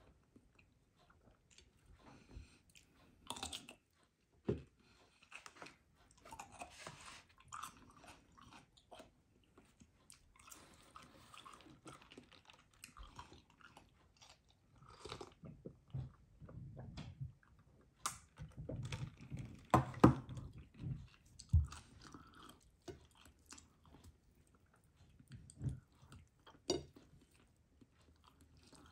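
Close-miked eating: a person chewing and biting baked chicken, with irregular small crunches and clicks from handling the food, the loudest bites about two-thirds of the way in.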